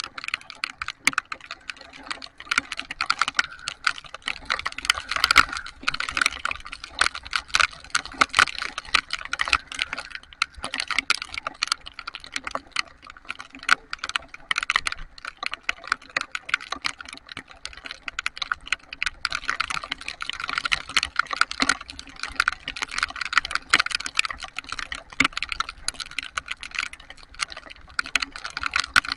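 Heavy rain drops pattering close to the microphone: a dense, irregular rattle of sharp clicks, heavier in two stretches.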